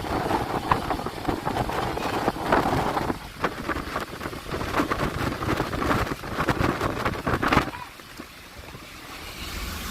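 Storm at sea heard from a fishing boat: wind gusting across the microphone over rain and sea noise, with irregular crackles. It eases off sharply about three-quarters of the way through.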